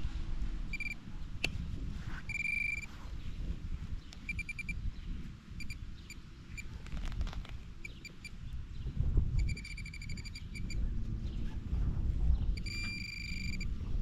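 Metal detector beeping: short, steady high-pitched tones, some single and some in quick runs of pulses, as it sounds over a buried target. Underneath are low rustling and knocking handling noises.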